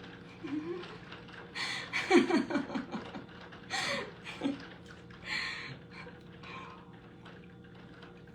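A person's voice close to the microphone: short breathy sounds and a few brief pitched vocal noises, loudest about two seconds in, over a faint steady hum.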